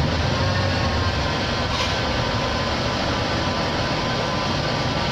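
Honda Accord 3.5-litre V6 engine running steadily.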